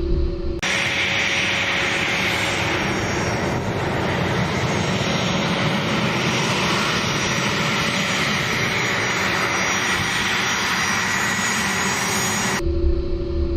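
A-10 Thunderbolt II's twin TF34 turbofan engines running as the jet taxis: a steady rushing hiss with a thin high whine on top. It cuts in about half a second in, replacing a low hum with a steady drone, and that hum returns about a second before the end.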